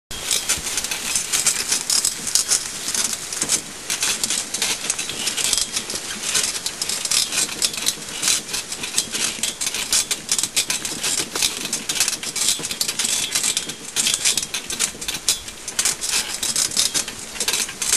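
Pony-drawn carriage rattling over a rough woodland track: a dense, continuous clatter of clicks and knocks from the wheels, frame and harness.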